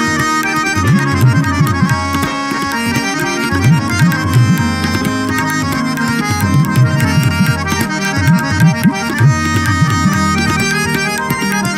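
Tabla played in quick strokes, the bass drum's pitch bending up and down, over sustained harmonium tones in an Indian instrumental passage.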